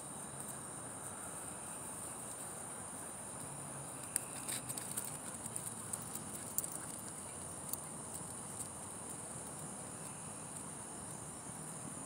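Steady high chirring of night insects. From about four to seven seconds in, a scatter of light ticks and taps sounds over it.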